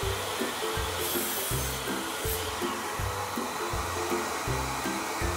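Background music with a steady, repeating bass beat, laid over the even rushing noise of a dust collector and a Makita miter saw cutting boards.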